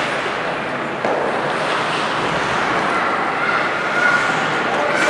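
Steady rushing ambience of an ice hockey arena during play, with a faint held tone from the crowd or the rink late on.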